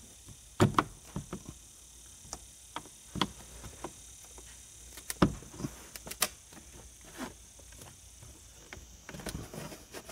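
Irregular clicks and small knocks of a screwdriver tip working a plastic headliner trim clip in a 2016 Honda Civic, as the clip is pushed in and turned to release it. The sharpest knocks come about half a second in and again around five to six seconds in.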